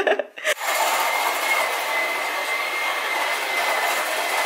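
Steady whirring noise with a faint high whine, as from a small electric appliance's motor and fan, starting about half a second in after a brief burst of laughing voices.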